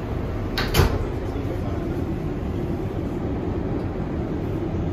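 R188 subway train running on the 7 line, heard from inside the car: a steady rumble of wheels on rail, with two sharp clacks in quick succession under a second in and a steady hum.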